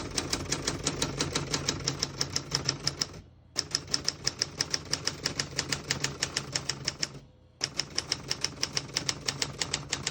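Typing on a 1974 Adler J2 manual portable typewriter: rapid keystrokes, about eight a second, in three runs with short pauses about three and seven seconds in. The keys strike evenly with none skipping or sticking.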